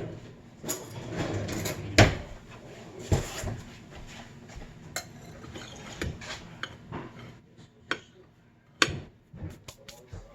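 Kitchen clatter: pots, dishes and utensils knocking and clinking in a string of sharp knocks, the loudest about two seconds in and another near nine seconds.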